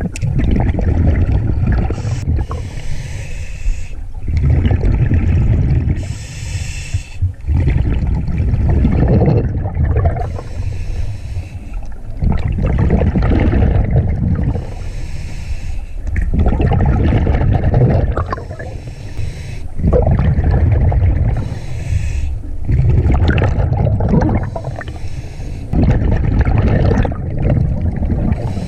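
A scuba diver breathing underwater through a regulator in an even rhythm, about one breath every four seconds. A low rumble of exhaled bubbles alternates with the hiss of the regulator on each inhale.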